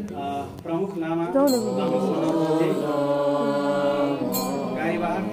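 Tibetan Buddhist prayer chanting in several overlapping voices, led by a monk reciting from a text into a microphone.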